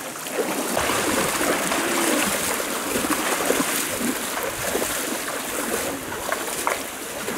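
People wading through a shallow, fast-flowing river, their legs splashing through the water over the steady rush of the current.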